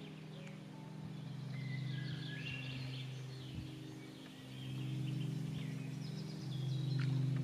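Soft background music held on sustained low notes, with small birds chirping and whistling over it.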